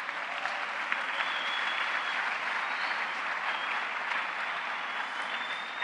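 Large audience applauding: a dense, even patter of many hands clapping that builds over the first couple of seconds, then eases slightly toward the end.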